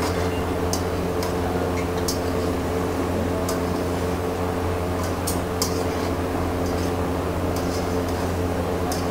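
Steady mechanical hum, with light, irregular clicks and scrapes of a metal spatula stirring food in a black wok.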